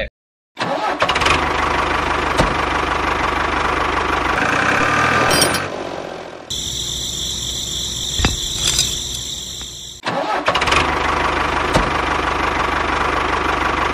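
Tractor diesel engine starting about half a second in and running with a fast, even chug. Between about six and ten seconds a different, higher whine with steady tones takes over, then the engine chugging returns.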